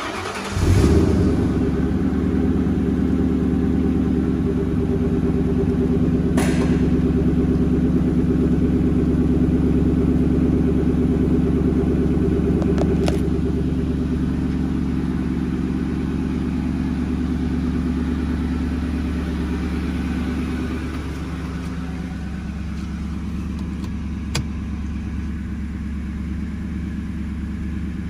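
A 2003 Ford Mustang GT's 4.6-litre V8 cold-starting: it catches within the first second, then idles steadily. About 21 seconds in it settles to a slightly lower, quieter idle as it warms.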